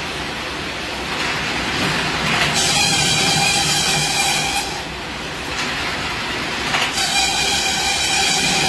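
Satay-skewer making machine running steadily. A higher whine comes in twice, about two and a half seconds in and again about seven seconds in.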